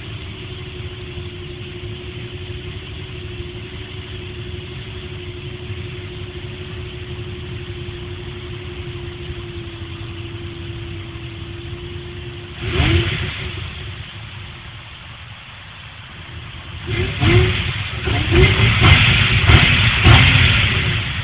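2007 Infiniti G35 sedan's 3.5-litre V6 heard at its stock muffler's tailpipe, idling steadily, then revved once, quickly, about halfway through. Near the end comes a run of several quick, loud revs, one after another.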